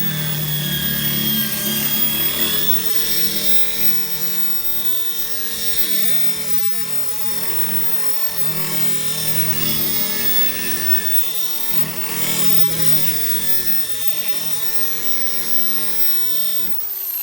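Electric drill running under load as it bores out the head of a brake rotor retaining screw, a steady motor whine that spins down near the end.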